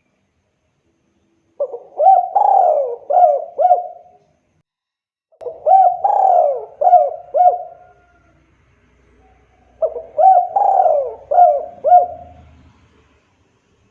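Spotted dove (tekukur) cooing: three song phrases a few seconds apart, each a rough opening note followed by several short coos that rise and fall.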